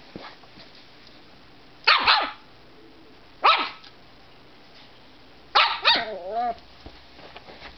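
A dog making three short, grumpy bark-like vocalisations, the last trailing off into a wavering, warbling grumble. These are the tired, grumpy noises of a pet before a nap.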